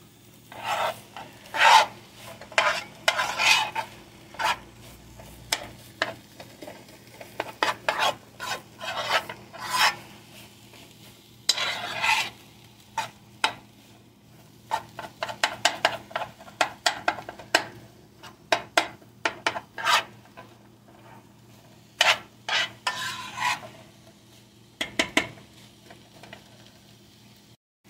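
Metal spoon scraping and stirring vegetables around a nonstick skillet during stir-frying, in clusters of quick, irregular strokes with short pauses between them.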